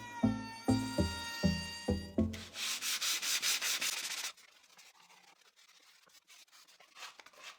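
Sandpaper rubbing on wood in quick, even back-and-forth strokes for about two seconds, after background music with a beat cuts out; then it goes quiet.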